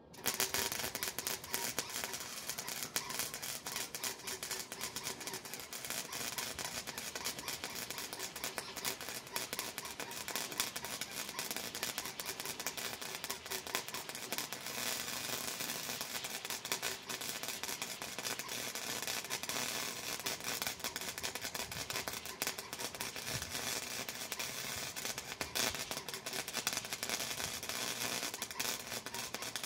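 Wire-feed welder arc crackling steadily while a bead is run, with the wire speed turned up; it starts abruptly.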